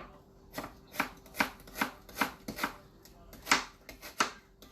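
Kitchen knife chopping vegetables on a cutting board: a run of quick, separate cuts about two to three a second, with a short pause a little past the middle.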